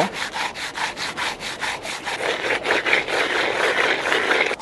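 A fresh fish being scrubbed with salt by hand against a rock: quick, rhythmic rubbing strokes, several a second. This is the salt scrub that cleans the gutted fish before it is cut and seasoned.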